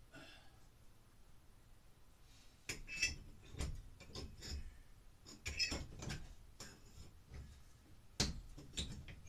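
Hammer working at a metal ceiling light-fixture bracket: bursts of sharp metallic clinks and knocks as it taps and pries the bracket loose, starting a few seconds in and coming in three clusters.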